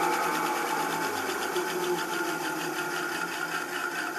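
Delta 9-inch benchtop bandsaw, no blade fitted, coasting down after the motor is switched off: the motor hum dies away about a second in, leaving the lower wheel and cog-belt drive whirring with a fast, even ticking that slowly fades as the wheel loses speed.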